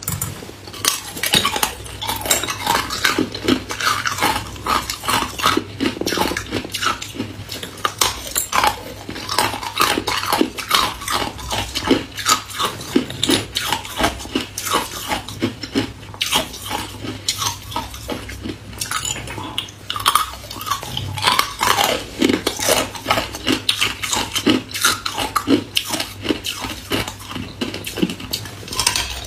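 Close-miked crunching and cracking of hard ice being bitten off a molded slab of ice cubes and chewed, with clinks of ice cubes knocking together in a plastic bowl. Many sharp cracks a second, with no let-up.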